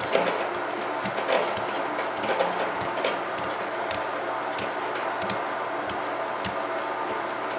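A doorway baby jumper clicking and ticking irregularly, about two a second, as an infant bounces in it, over a steady background hiss.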